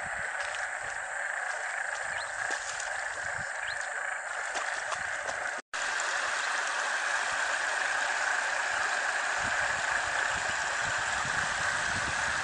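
A steady chorus of frogs calling after heavy rain, over the rush of floodwater running off an overflowing dam. The sound cuts out for an instant just past halfway.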